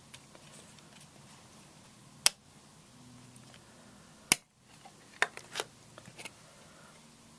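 Sharp clicks and taps from handling a metal steelbook Blu-ray case and its discs: two loud clicks about two seconds apart, then a few lighter taps.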